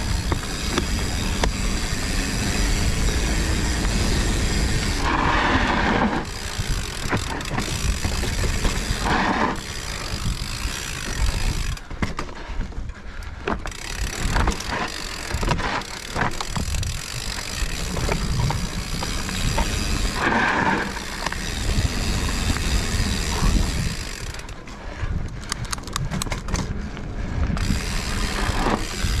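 Mountain bike running fast down a rough dirt singletrack: the freehub ratchet clicking as it coasts, chain and frame rattling over the bumps, over a steady rumble of tyres and wind.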